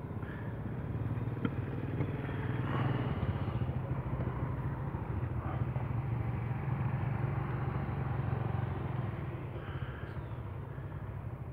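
A vehicle engine running with a steady low hum, growing louder a couple of seconds in and fading near the end, like a vehicle passing by.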